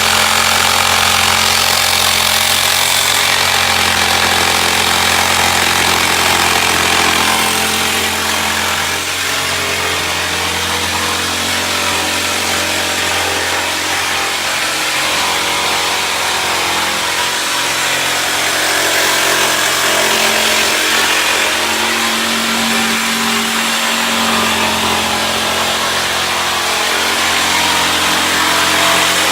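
Electric jigsaw running steadily, cutting through a wood panel, with a continuous buzzing drone that dips slightly in level partway through.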